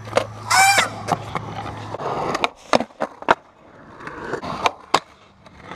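Skateboard rolling on smooth concrete, with a string of sharp clacks and knocks from the board and wheels. A brief high pitched squeal sounds about half a second in.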